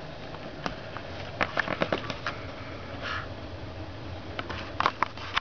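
Short dry crackles and rustles of newspaper as a cat shifts about on it, in two clusters: about a second and a half in and again near the end.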